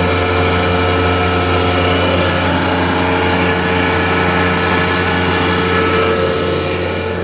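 Gardner Denver Electra Screw (EBE99K) rotary screw air compressor running steadily just after start-up: an even hum with several steady tones, free of any irregular knocks or rattles.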